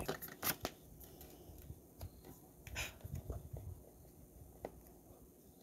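Faint handling noise of plastic toy figures being moved about on a tabletop: a few sharp clicks at the start, a brief rustle about three seconds in, and another click as a figure is set down near the end.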